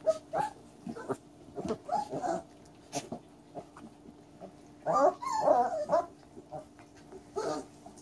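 Catahoula Leopard puppies making short, wavering yelping calls as they play together, in a scattered string of calls. A longer, louder run of them comes about five seconds in.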